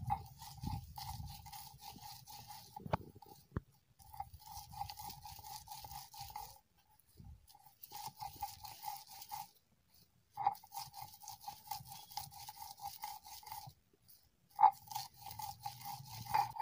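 Stone roller of a sil-batta grinding stone crushing and scraping chopped green garlic stalks against the stone slab, coarsely grinding them. Quick rhythmic strokes come in several bursts with short pauses between.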